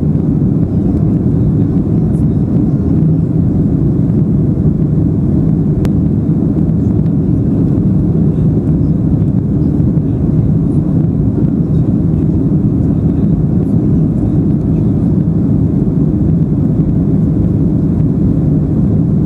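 Steady low rumble of an airplane in flight, heard from inside the cabin: the even drone of engines and rushing air.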